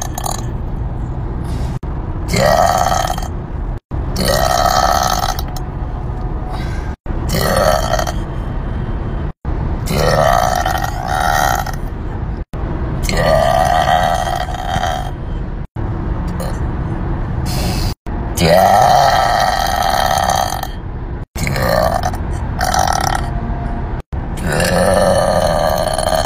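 A string of loud, drawn-out burps from different women, about a dozen in quick succession. Each is a second or two long, and the recording cuts suddenly from one to the next.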